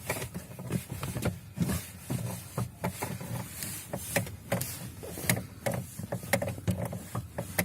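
Lada Granta clutch pedal being pressed and released, its mechanism squeaking and clicking with each stroke: the pedal squeak well known on this car.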